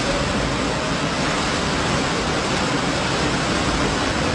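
Flash floodwater rushing through a street in a fast, churning torrent, a steady, even rush of water.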